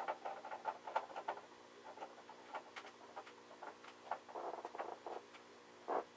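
Screwdriver driving a screw into a PCI Express card's bracket on a metal PC case: a run of small irregular clicks and ticks, with a short scrape about four seconds in and a sharper click near the end.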